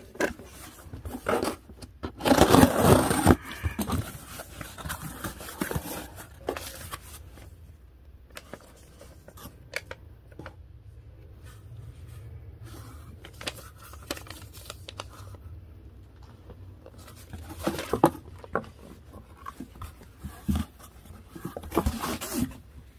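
Cardboard mailing box being opened and its contents handled: a loud tearing burst about two seconds in, then intermittent rustling and crinkling of paper and packaging, with more crinkling bursts near the end.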